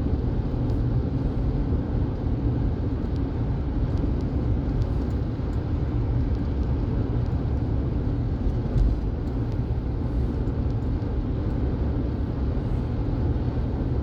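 A car driving steadily, heard from inside the cabin: a low, even rumble of road and engine noise.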